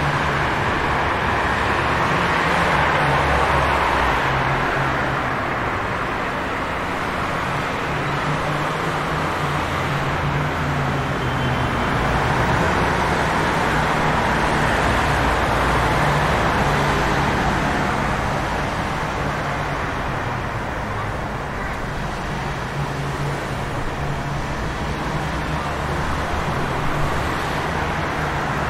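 City street traffic ambience: a steady wash of passing vehicles and road noise with a low engine hum, swelling and easing slowly.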